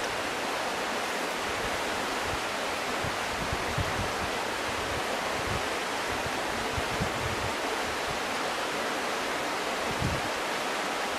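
Steady, even rush of flowing water, with a few brief low bumps of wind on the microphone.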